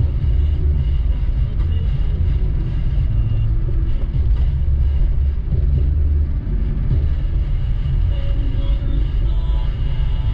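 Steady low rumble of a car driving slowly, its engine and tyre noise constant throughout.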